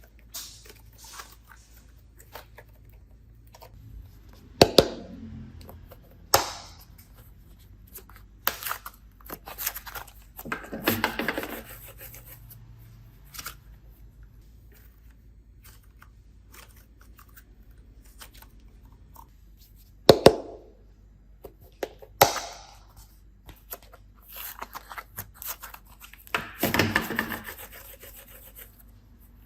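Hands working with slime-making materials: scattered sharp clicks and taps, with a few longer rustling, scraping passes of a second or two, about ten seconds in and again near the end.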